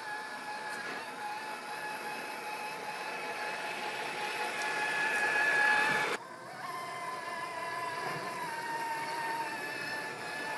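Axial SCX6 1/6-scale RC crawler's electric motor and drivetrain gears whining as it crawls over rocky ground, growing louder, then breaking off sharply about six seconds in and resuming at a slightly different pitch.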